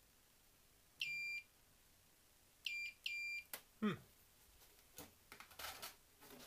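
Digital multimeter's continuity tester giving three short high beeps, one then a close pair, as the probe touches the locomotive's motor and chassis: it is signalling a connection, a short the repairer suspects may be coming through the metal workbench. A sharp click with a brief falling sweep follows, then light handling clicks and rustles.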